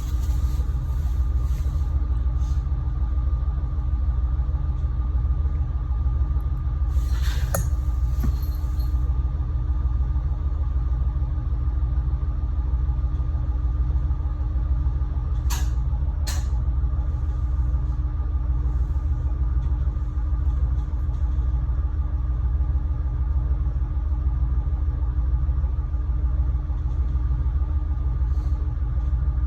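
Diesel railcar engine idling steadily: a low, even rumble with a constant hum. There are a few short clicks, one about seven seconds in and two in quick succession around sixteen seconds.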